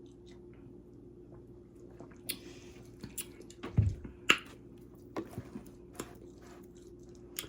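A person drinking root beer: sipping and swallowing with a few quiet gulps and small wet mouth clicks.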